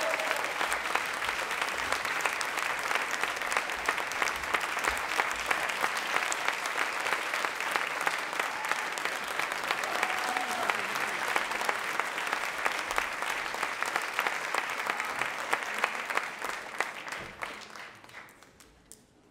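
Theatre audience applauding: dense, steady clapping that fades away over the last two seconds or so.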